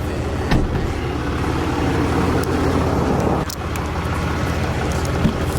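A 2021 Ram pickup truck driving, its engine running steadily under road noise, with a few brief knocks.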